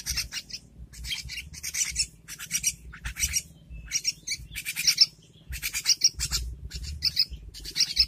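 Hand-reared songbird chicks, a young oriental magpie-robin and a young yellow-vented bulbul, begging to be fed with short, harsh chirps in quick clusters, about two clusters a second, with a brief pause near the middle.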